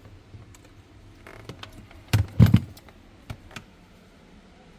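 Scattered light clicks and knocks of fridge parts and tools being handled during a repair, with a few louder knocks about two seconds in.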